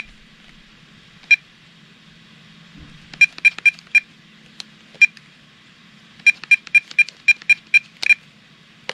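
VTech CS5113 cordless phone handset beeping at each button press while its menu is scrolled: short beeps all of the same pitch, one or two at a time at first, a quick run of four about three seconds in and a faster run of about eight near the end. A faint steady low hum lies underneath.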